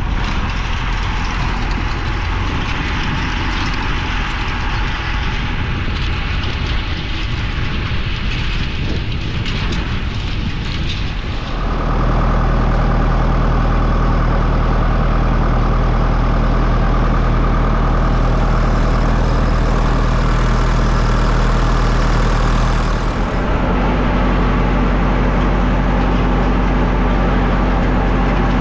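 Massey Ferguson tractor engine running steadily, heard first from beside the field and then, about 12 seconds in, loud and close from the driver's seat.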